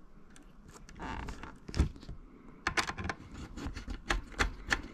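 Screwdriver working the screw of a terminal block on a 240 V-to-12 V converter, clamping the neutral wire in: light scraping and handling, one sharp click about two seconds in, then a quick run of small clicks over the second half.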